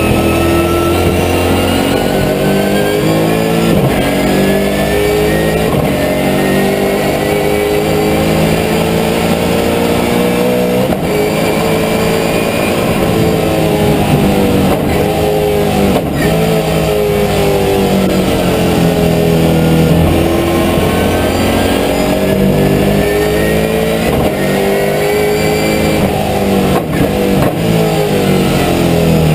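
Holden V8 race car's V8 engine heard from inside the cockpit at racing speed, its pitch climbing repeatedly and dropping back with gear changes and lifts for corners.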